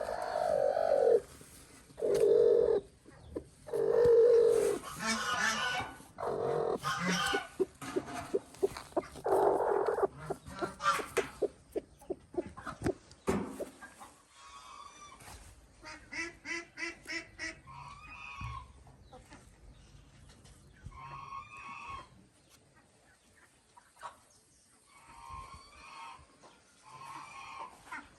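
A flock of ducks quacking, with loud, crowded calls for about the first half and quieter, more scattered calls after that, including a quick run of short repeated notes.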